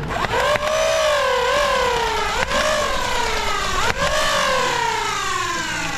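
Flywheel Nerf blaster revving up with a whine, then coasting down in pitch. It is re-revved with a click twice, about two and a half and four seconds in, and winds down slowly at the end.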